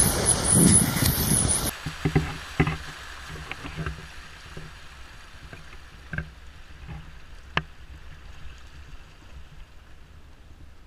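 Flash-flood water running through a desert wash. A loud, even rush for the first second and a half, then it drops suddenly to a quiet, steady flow with a few faint knocks.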